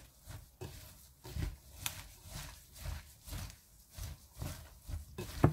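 Gloved hands tossing and squeezing shredded radish with chili powder and seasoning in a glass bowl: soft, wet squishing and rustling strokes, about two a second. A sharp knock comes near the end.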